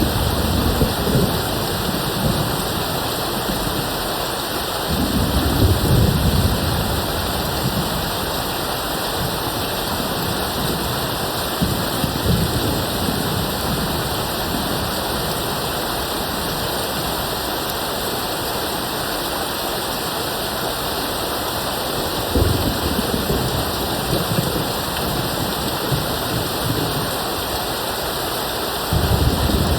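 Steady rain pouring down, with low rumbles of distant thunder rolling in several times. The strongest rumbles come about five seconds in, a little past two-thirds of the way through, and just before the end.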